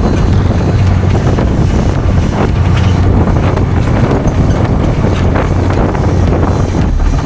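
A vehicle engine running close by as a loud, steady low rumble, mixed with wind buffeting the microphone.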